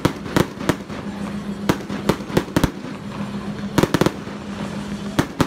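An irregular series of about a dozen sharp bangs, some in quick clusters, over a steady low hum.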